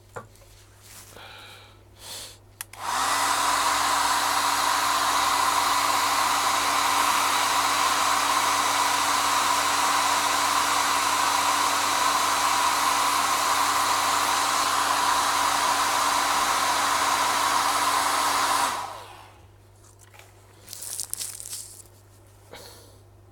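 Hot air rework station blowing steadily for about sixteen seconds, switching on about three seconds in and cutting off near the end, as it heats the iPhone 7's TriStar charging IC to lift it off the board. A few light knocks come before and after it.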